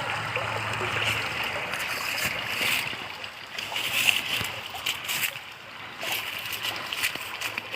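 Stream water running in a steady rush, with scattered light clicks and rustles from about two and a half seconds in.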